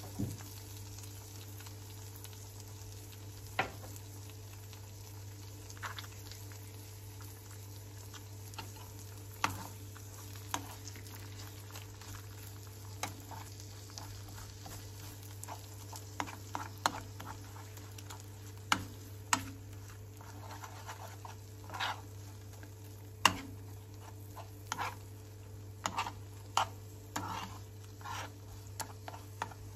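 Eggs sizzling in oil in a nonstick frying pan while a metal spoon stirs and scrambles them, making short clicks and scrapes against the pan that come more often in the second half. A steady low hum runs underneath.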